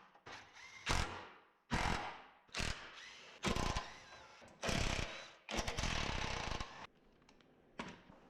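Power tool, likely a cordless impact wrench, run in about eight short bursts on a part of a Mustang being removed. One longer burst about two-thirds of the way through stops abruptly.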